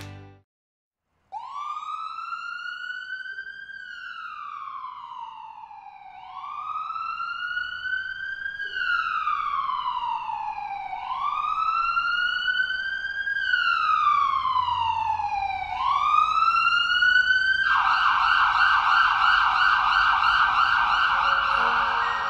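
Emergency vehicle siren wailing in slow rises and falls, about five seconds each, growing louder. Near the end it switches to a fast warble.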